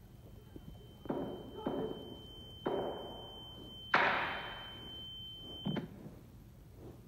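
A run of five muffled bangs and thuds spread over about five seconds, the loudest about four seconds in with a long fading tail, under a steady high-pitched ringing tone that cuts off just before the last thud.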